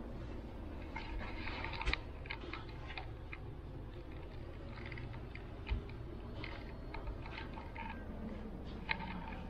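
Airport terminal ambience: a steady low hum with scattered light clicks and ticks, and two dull thumps, about two seconds in and a little past the middle.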